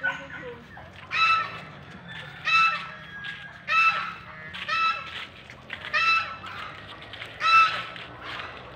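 An animal giving a short, high, pitched call over and over, roughly once a second.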